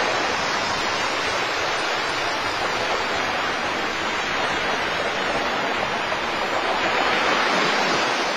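Sea surf: a steady rushing wash of waves, swelling a little near the end.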